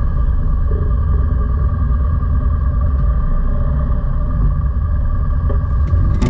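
Car on the move: a steady low rumble of road and engine noise.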